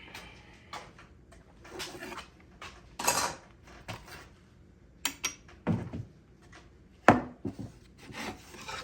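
Scattered clinks, knocks and rattles of tools and small metal and wooden parts being handled on a workbench, with the loudest knock about seven seconds in.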